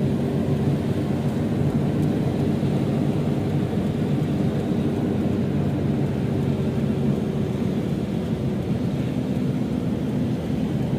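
Steady engine and tyre noise of a car driving slowly on a wet road, heard from inside the cabin: a low rumble with a faint engine hum.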